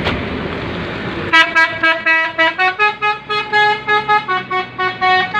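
Telolet multi-tone musical horn on a Handoyo bus playing a quick tune of short notes, about three a second, that step up and down in pitch. It starts about a second in, over street noise.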